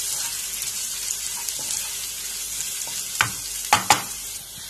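Chopped green chillies and grated ginger frying in sesame oil in a non-stick kadai, a steady sizzling hiss. About three seconds in come three sharp knocks, close together.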